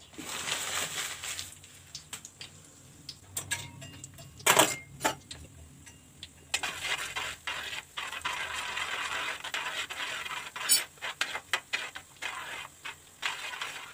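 Cashew nuts frying in hot ghee in an uruli: a steady sizzle, stronger from about six and a half seconds in. A metal spoon clinks and scrapes against the pan as the nuts are stirred, with a few sharp clinks about four and a half seconds in.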